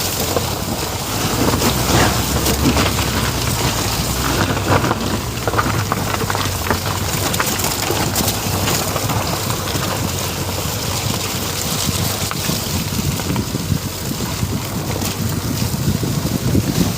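Ford EcoSport driving over a rough track: a steady low rumble of engine and tyres with a noisy crackle and wind buffeting the microphone.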